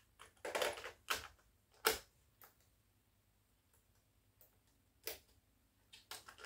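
Plastic clicks and clacks of a cassette being loaded into an Orel 101S-1 cassette deck: the tape going into the holder, the cassette door snapping shut and the transport keys being pressed. There is a run of clicks in the first two seconds, the sharpest about two seconds in, then a pause, then a few more clicks near the end.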